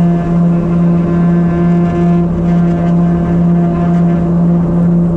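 Let 410 UVP-E20's GE H80 turboprop engine and propeller running at steady high power, heard inside the cabin. It is a strong, even propeller hum with a ladder of overtones and a slow, regular swell in loudness.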